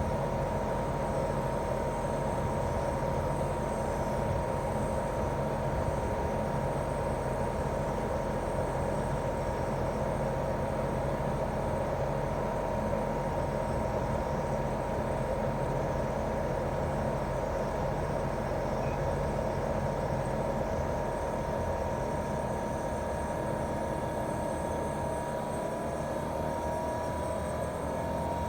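Daikin R28RMV mini-split outdoor unit running in heating mode: its inverter-driven twin-cylinder swing compressor gives a steady whine near 1 kHz and a low hum over the whoosh of the outdoor fan. Near the end the whine splits and starts to rise in pitch as the compressor speeds up.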